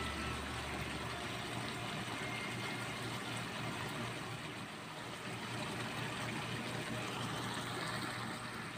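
Chicken pieces simmering in tomato broth in a pan on the stove: a steady hiss.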